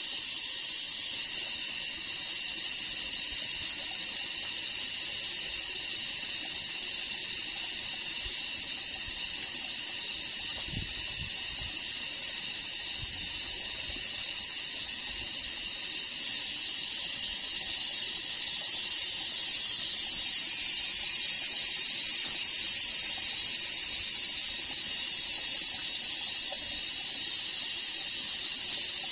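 Steady high-pitched hiss of rainforest ambience, swelling louder about twenty seconds in and easing a little near the end.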